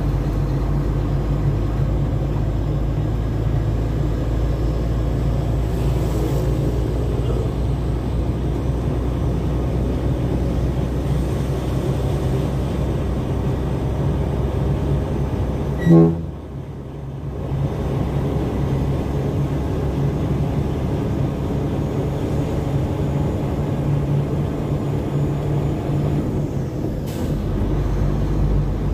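Trailer truck's diesel engine running steadily under way. About halfway there is one brief loud pitched blast, after which the engine sound dips for a second or two before picking up again.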